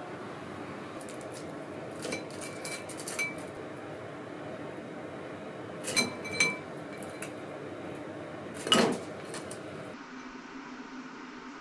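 Wooden chopsticks and ceramic bowls clinking and tapping as fried chicken wings are turned in seasoning: a few scattered clusters of light clinks with a short ring, and one louder knock near the end. About ten seconds in it gives way to quiet room tone.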